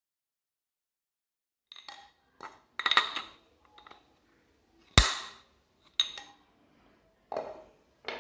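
Metal washing-machine agitator mechanism parts being handled on a bench: a series of separate clinks and knocks, the loudest a sharp metallic impact with ringing about five seconds in.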